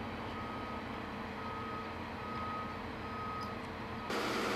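Vehicle reversing alarm beeping about four times at an even pace over a low steady machinery hum. Near the end the beeping stops and a louder steady hiss of site noise takes over.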